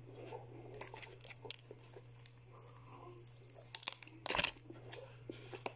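Crispy fried chicken being pulled apart by hand and chewed: scattered crackles of the crisp coating with wet mouth chewing sounds, and a louder crunch a little after four seconds in.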